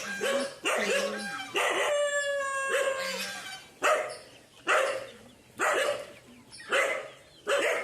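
A dog barking repeatedly, about once a second, while a rooster crows once about two seconds in, one long call falling slightly in pitch.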